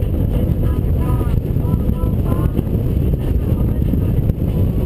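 Steady wind rush on the camera over the running engine of a Honda Gold Wing motorcycle cruising at highway speed.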